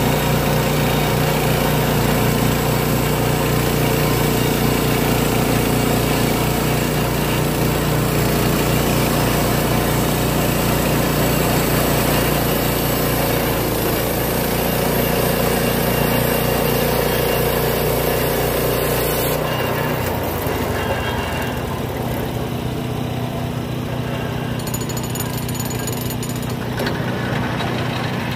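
Timbery M100 portable bandsaw mill running with its gas engine under load as the band blade saws through a timber. About two-thirds of the way in, the high cutting noise stops abruptly and the engine carries on lower and a little quieter.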